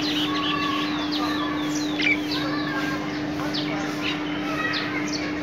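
Many small birds chirping in quick, short, downward-sweeping calls, over a steady low hum.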